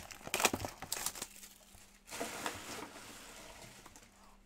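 Hands opening a Panini Court Kings trading-card blaster box: a few light knocks and scrapes of the cardboard in the first second, then about two seconds of crinkling and tearing as the box and its wrapping are torn open.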